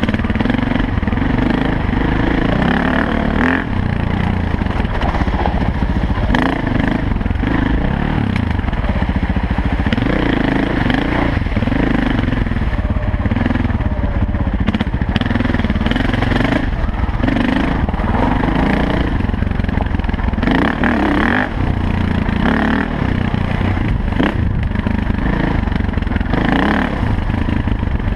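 Dirt bike engine running on the trail, its pitch rising and falling as the throttle opens and closes, with short clattering knocks over the bumps. Heard from the rider's helmet.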